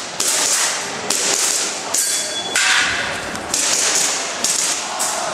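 Airsoft pistol fired in a string of sharp shots, roughly one a second, while a shooter runs an Action Air course of fire.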